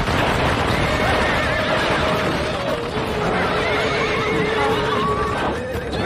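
Galloping horses' hoofbeats with several wavering neighs and squeals, one of them drawn out over the second half.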